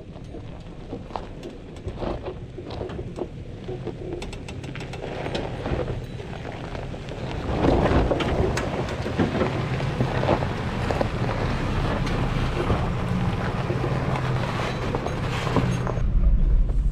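Off-road vehicle creeping over a sandy, gravelly wash: low engine hum with tires crunching and popping over small stones, getting louder about halfway through.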